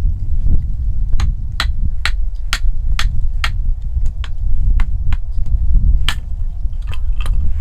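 Kindling being split by hand: a run of sharp wooden knocks about two a second, then a few more, slower. A steady low rumble of wind on the microphone lies under it.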